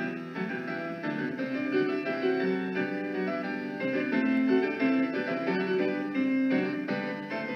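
Background music: solo keyboard music with several lines of notes moving steadily together, without drums or voice.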